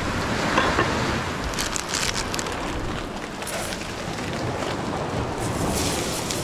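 Steady rushing noise of wind on the microphone and surf breaking on the shore, with a few light clicks about two seconds in.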